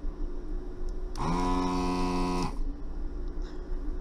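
Vacuum pump of a Hikari HK915 desoldering station switching on once, about a second in, and running for a little over a second. It makes a buzzing hum that rises in pitch as it spins up and sinks as it stops, sucking molten solder off a circuit-board pin. A low steady hum lies underneath throughout.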